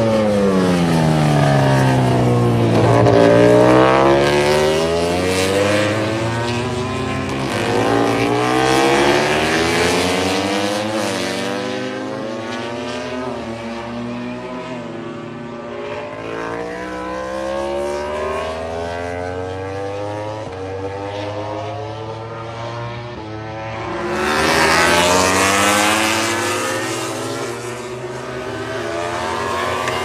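MotoGP racing motorcycles' four-cylinder engines passing at high revs, one after another. The engine note falls and rises as each bike goes by and shifts gear. The loudest passes come about three seconds in and again around twenty-five seconds.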